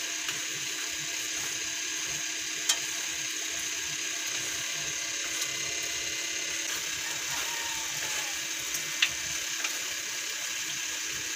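Coconut-cream sauce of a pork lung and heart stew bubbling and crackling at a steady simmer in a nonstick wok while a wooden spatula stirs it, with a few sharp clicks of the spatula against the pan.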